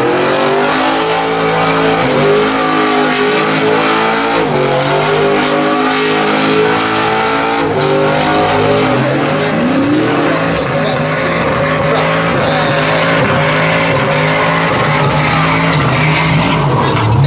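Chevrolet Silverado pickup's engine revved hard and held high during a smoky burnout, the rear tyres spinning and squealing on the pavement. The revs drop briefly about four seconds in and again about ten seconds in, then climb back up.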